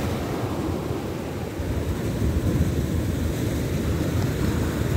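Surf breaking and washing up the sand, a steady rushing with a heavy low rumble of wind buffeting the microphone.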